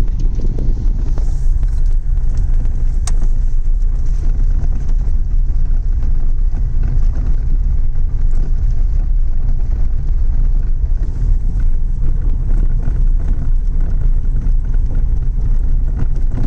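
Tata Tiago hatchback being driven, heard inside the cabin: a steady low rumble of road and engine noise, with one faint click about three seconds in.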